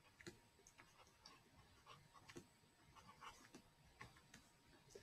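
Faint, irregular ticks and light scratches of a stylus writing on a pen tablet.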